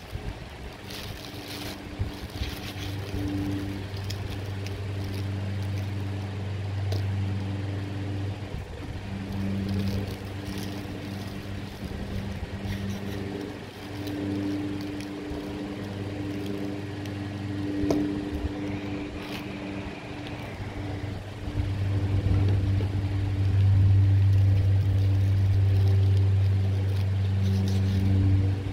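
A low mechanical drone with a few overtones, swelling and fading and loudest near the end. Light clicks and plastic-bag crinkles come from hands cutting sorrel calyxes over the bag.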